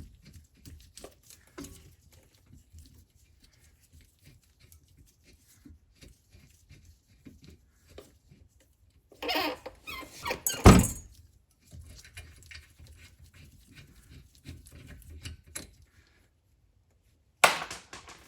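Hand tools working on a rear brake caliper's slide-pin bolts: light clicking and tapping, with a stretch of scraping and a loud metal clunk about ten seconds in, and another sharp knock near the end as the caliper comes loose.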